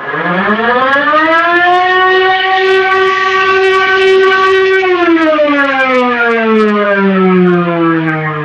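Terminal emergency alarm siren: a wailing siren that winds up in pitch over about two seconds, holds a steady tone, then slowly winds down from about five seconds in.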